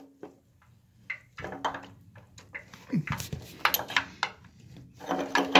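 Scattered short metallic clicks, clinks and knocks of hand tools and parts being handled while working on an electric water heater's element and its wiring.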